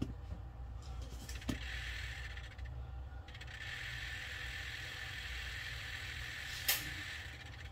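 Gauge needle stepper motors of a Volvo VNL truck instrument cluster buzzing as the gauge self-test sweeps all the needles, in two stretches with a short break between. Sharp clicks about a second and a half in and near the end.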